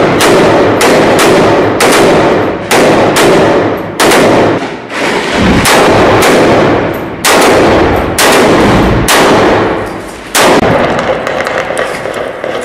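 Assault rifles fired from inside a room: a loud, rapid run of single shots and short strings, a few per second, each shot echoing off the walls, with a brief lull about ten seconds in before another shot.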